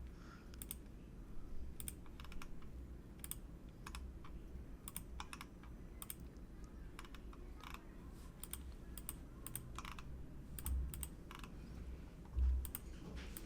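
Computer input clicks, sharp and irregular, one or two at a time, over a faint low hum, with a dull thump about twelve seconds in.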